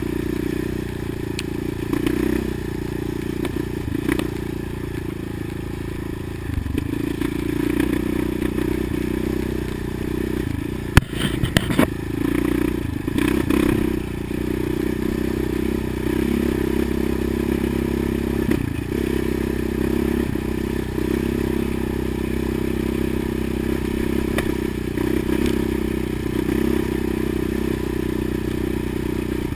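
Quad (ATV) engine running steadily while riding, heard low and muffled, easing off and back on the throttle a few times. A short cluster of sharp clattering knocks comes about eleven seconds in.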